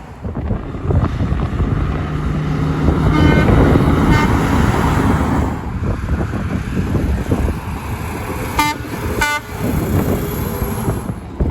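A truck passing on the road, its engine and tyre noise swelling and then fading, with short horn toots: two faint ones about three and four seconds in, and two sharper ones close together near nine seconds.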